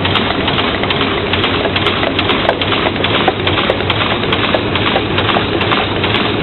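A machine running steadily: a low hum under a dense, continuous clatter of small knocks.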